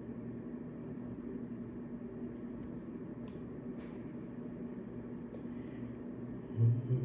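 Steady low hum of the room, with a few faint light taps and clicks of a watch band being handled against the watch case. A low murmur of a man's voice starts near the end.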